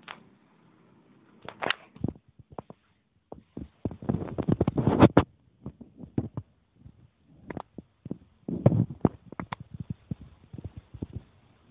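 Gusts of snowstorm wind buffeting a phone's microphone: irregular thumps and crackles, heaviest about four seconds in and again near nine seconds, with near-silent gaps between.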